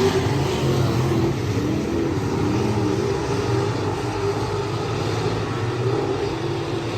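Race car engine running at speed, its pitch rising and falling with the throttle.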